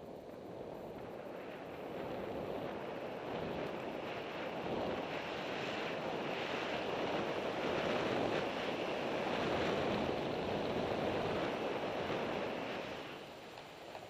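Rushing water of a rocky mountain river: a steady noise that grows louder to a peak a little past the middle, then fades near the end.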